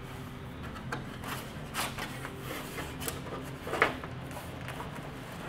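Hands rubbing and pressing a fiberglass fender flare and its rubber gasket against the fender edge, with a few short scuffs and knocks, the sharpest about four seconds in, over a low steady hum.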